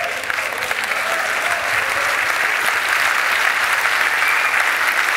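Audience applauding, a dense steady clapping that grows a little louder over the first couple of seconds.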